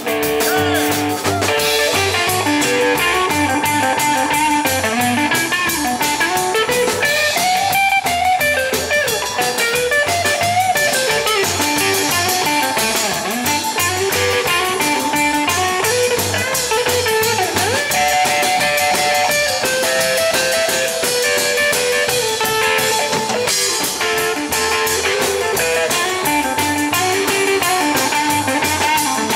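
Live rockabilly trio playing an instrumental blues break: electric guitar lines over upright bass and drum kit, with a steady beat.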